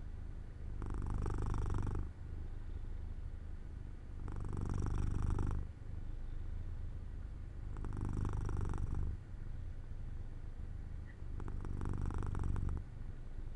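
Domestic cat purring steadily while dozing off, the purr swelling louder four times, about every three and a half seconds, with each breath.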